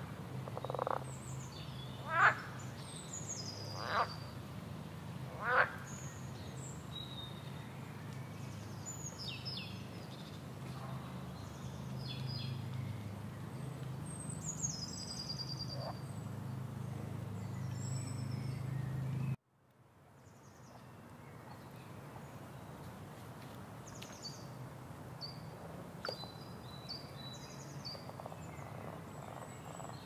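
Frogs croaking in a chorus with birds chirping over it. About two-thirds of the way through, the sound cuts out abruptly and fades back in with only the bird chirps.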